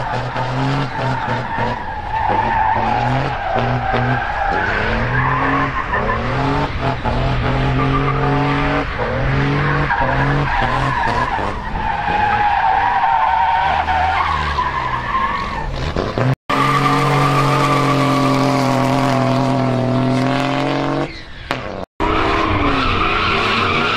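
High-performance car engines running at high revs with tires squealing and skidding, the engine pitch holding and then stepping up and down. The sound drops out abruptly twice, briefly, in the second half.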